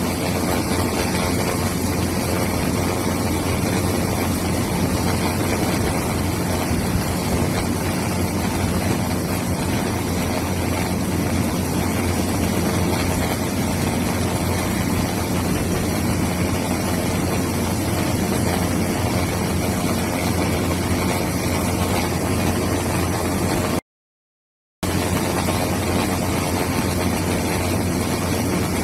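Steady engine and propeller drone of the aircraft filming the footage, heard from inside it, with a low hum under it. It cuts out for about a second near the end, then resumes unchanged.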